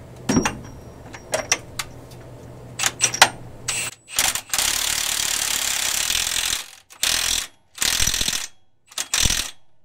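Milwaukee Fuel cordless impact wrench hammering the axle nut onto the transmission output-shaft yoke: a few sharp metal clicks as the socket goes onto the nut, then one long burst of about two seconds followed by three short bursts as the nut runs down tight.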